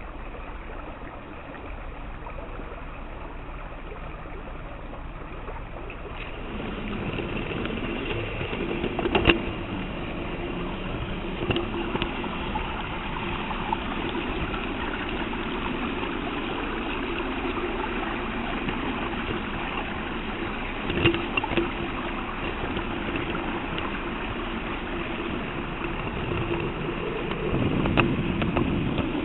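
LGB garden-scale rack locomotive heard from on board: a steady hiss at first, then about six seconds in its electric motor and cog gearing start up and run with a steady whine and rumble, broken by a few sharp clicks.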